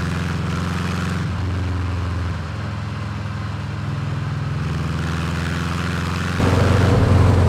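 Air-cooled flat-four engine of a 1997 Mexican-built, fuel-injected VW Beetle running steadily on the road, heard from inside the car as a low drone. It jumps louder about six and a half seconds in.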